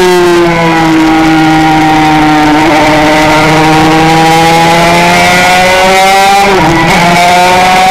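Honda RS125 single-cylinder two-stroke race engine at high revs, heard from on board: its pitch sags slightly, then climbs steadily as the throttle opens through a corner. Near the end the pitch drops sharply in a quick upshift and starts climbing again.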